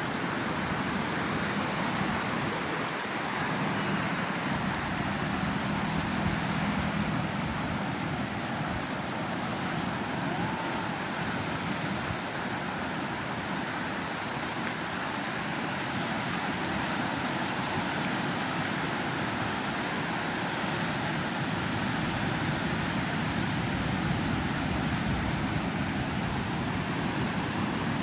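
Steady outdoor traffic noise, with a low engine hum in the first several seconds.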